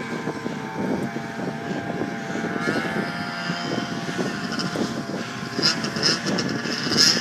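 Snowmobile engine running with a steady drone, its pitch rising a little about three seconds in, with a few crackles near the end.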